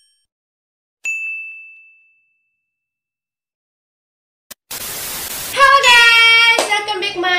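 A single bright electronic chime from an intro animation about a second in, ringing down over about a second. Then silence, a click and a hiss, and near the end a woman's loud, drawn-out excited greeting call.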